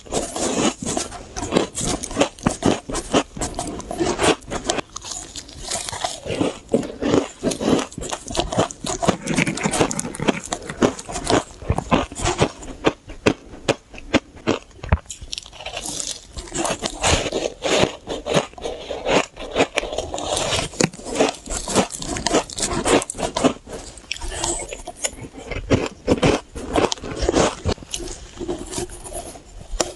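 Close-miked biting and chewing of powdery shaved ice: dense, irregular crunching throughout.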